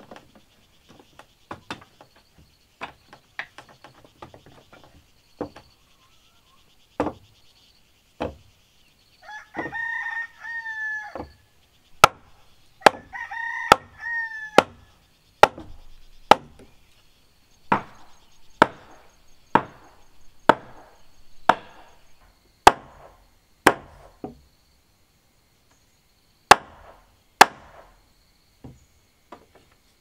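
Machete blade chopping into the top of a wooden post, sharp blows about one a second through most of the clip, with lighter knocks before them. A rooster crows twice in the background partway through.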